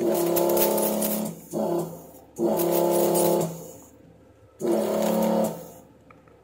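Electric vacuum desoldering gun's pump switching on in four bursts of about a second each, one of them much shorter, sucking molten solder off through-hole pads: a steady motor hum with a hiss of air, starting and stopping abruptly.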